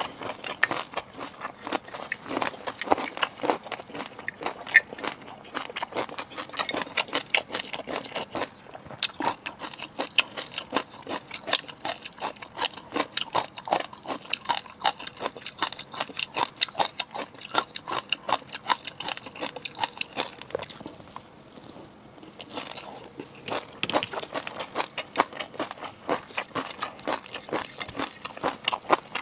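Close-miked chewing of seafood: dense crunching and clicking, many a second, with a short lull a little past two-thirds of the way through.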